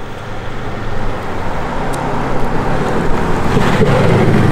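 Mercedes-Benz S400d twin-turbo inline-six diesel, its note boosted by a retrofitted active sound module, driving toward and past close by; the engine sound grows louder as the car nears.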